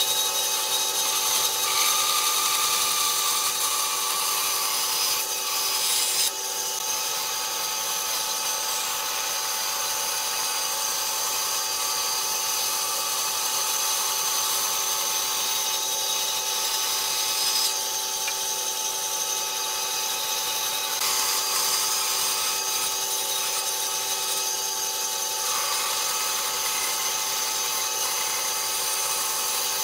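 Bandsaw running steadily and cutting through a thick wooden board along a curve, a constant machine whine with the hiss of the blade in the wood.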